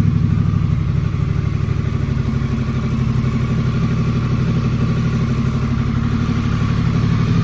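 Honda Rebel 1100's parallel-twin engine running steadily at idle through a Coffman's Shorty slip-on exhaust, with an even, deep pulse and no revving.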